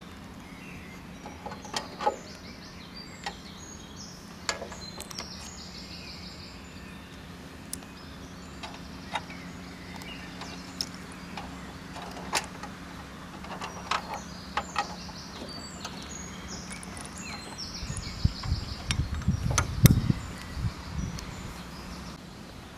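Scattered metallic clicks and taps as steel cable is fed through the pulleys of a casket lowering device's frame and its chain and snap-closures are handled, over a steady low hum. Near the end comes a cluster of louder low thumps and rumbles.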